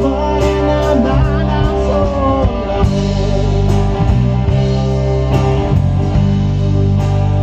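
A live band playing a rock song on electric guitars, electric bass and drums with a steady beat. A lead guitar bends notes about a second in.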